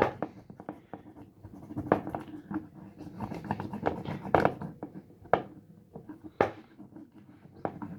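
Handling noise from a small plastic Aquapets toy: irregular scraping and rubbing with scattered taps, clicks and a few sharper knocks.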